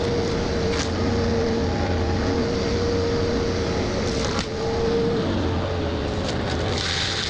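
Excavator engine running under load while its forestry mulcher head grinds brush, with a steady whine held throughout and a couple of sharp cracks of wood being chewed up.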